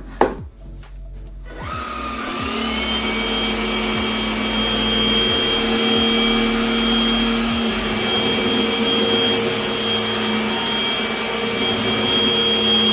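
Cordless stick vacuum motor starting about a second and a half in on its lowest suction setting, spinning up into a steady whine over a rush of airflow. Two sharp clicks come just before it starts.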